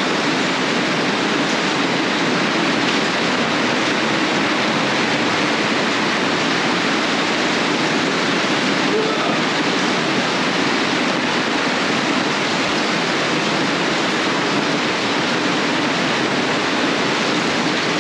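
Torrential rain pouring down in a steady, unbroken rush.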